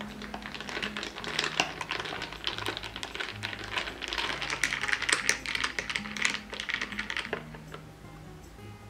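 Ice cubes clinking and rattling against a drinking glass as an iced latte is stirred with a glass straw: rapid, uneven clicks that stop about seven and a half seconds in.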